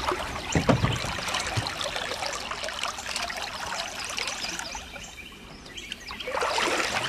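Water splashing and trickling at a boat's side as a striped bass is held in the river and released by hand, with a couple of low thumps about half a second in. The splashing eases off briefly and picks up again near the end.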